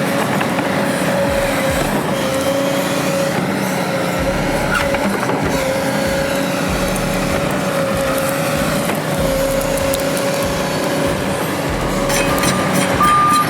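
Sunward SWE 215F crawler excavator working, its engine running steadily under load with a constant whine. About a second before the end, a warning alarm starts beeping repeatedly.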